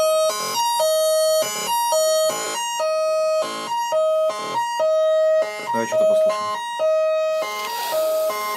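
Doepfer Dark Energy analog synthesizer playing a looping sequence of notes. A held low tone alternates with two higher pitches, and short buzzy notes fall between them about once a second. A hiss of noise comes in near the end.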